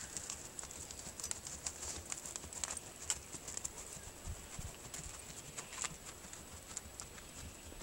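Hoofbeats of a gaited horse moving over field ground, a loose run of sharp clicks that slowly fades as the horse goes farther off.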